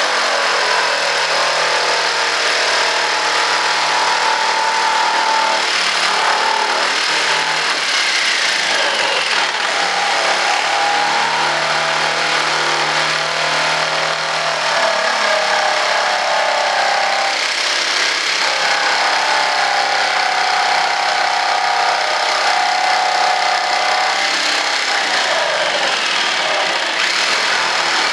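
Electric jigsaw running continuously as it cuts through a sheet along a marked line. Its motor note wavers throughout.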